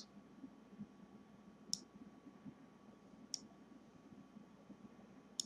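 Computer mouse clicking faintly, three single clicks about a second and a half apart, over near-silent room tone.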